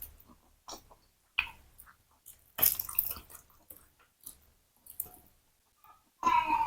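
Close-miked wet mouth sounds of someone chewing a fried tofu ball with a meatball inside: soft sticky clicks and smacks, busier for about half a second around three seconds in. A short voiced sound comes near the end.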